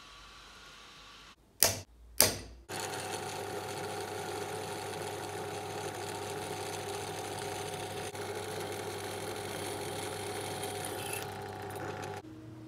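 Two loud knocks about half a second apart, then a bench drill press runs steadily as its bit drills into an aluminium bar, cutting off near the end.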